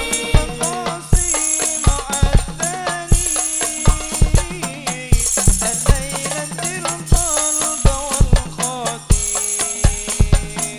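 Hadroh ensemble playing sholawat: rebana frame drums beat a steady rhythm, a melody line of held notes runs over them, and tambourine jingles shake about every two seconds.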